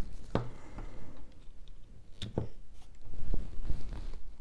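Small Christmas decorations being handled and set down on a tier tray: a few scattered light taps and clicks.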